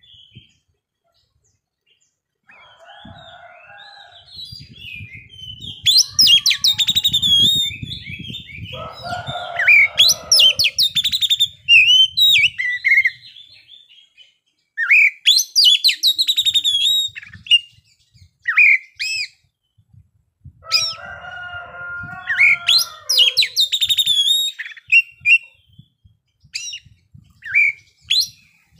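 Oriental magpie-robin singing in bursts of rapid, high, whistled and trilling phrases that slide up and down, with some harsher, lower notes mixed in. The song starts after about two seconds of silence.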